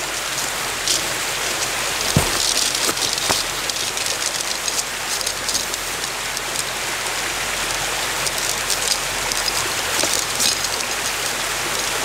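Mountain stream rushing steadily, an even wash of water noise, with a single sharp click about two seconds in.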